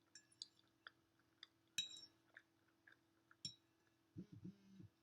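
Quiet eating of mac and cheese: soft mouth clicks and chewing, with a sharper ringing clink of a utensil about two seconds in. Near the end comes a short low hum from the throat.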